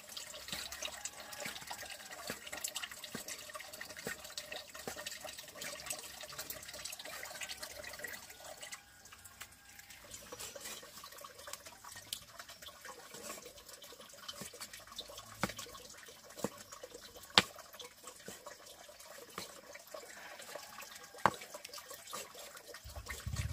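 Water running and splashing, with drips; the flow drops off about nine seconds in, and a few sharp knocks come in the second half.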